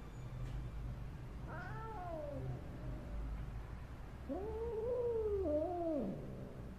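A domestic cat yowling, drawn-out and wavering: a short cry about a second and a half in, then a longer one that rises and falls before dropping away.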